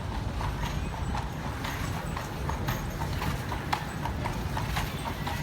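Carriage horse's hooves clip-clopping at a steady walk on the street, about three hoof strikes a second, over a low rumble.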